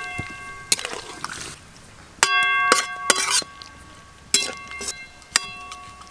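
A flat metal spatula stirring in a metal kadai, knocking against the pan about six times; each clank rings on with a metallic tone for about a second.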